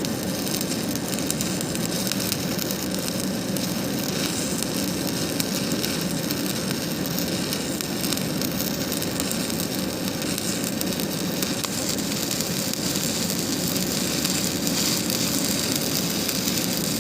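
Electric arc welding on a steel bucket: a steady crackling sizzle of the arc that runs without a break.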